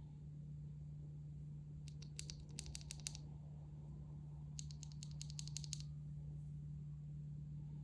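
Keys on a mechanical keyboard with yellow switches being pressed in two quick runs of about ten keystrokes each, one about two seconds in and one just before the six-second mark, with a steady low hum underneath.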